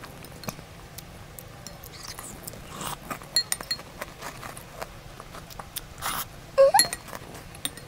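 Eating sounds: a metal spoon clinking and scraping in a glass bowl, sipping milk off the spoon twice, and chewing. Near the end there is a brief high, wavering hum of the voice.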